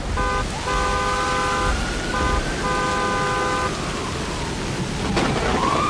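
Steady rain with a car horn honking four times, two short and two long blasts, in the first four seconds. About five seconds in there is a sharp crack, and an ambulance siren starts up, rising in pitch.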